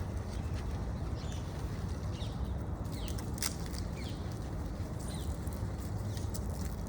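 Steady low outdoor rumble with a few short, high chirping calls scattered through it and a couple of sharp clicks.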